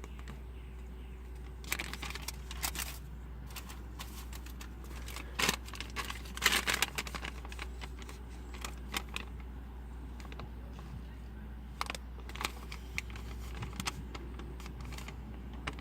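Irregular small clicks and taps, loudest a little past the middle, over a steady low hum.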